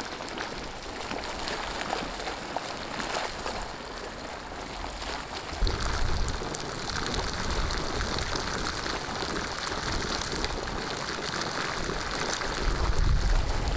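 Hot sulphur spring water gushing and splashing as it spouts from the ground and runs off in a stream, a steady rushing noise. There are two spells of low rumble, about six seconds in and near the end.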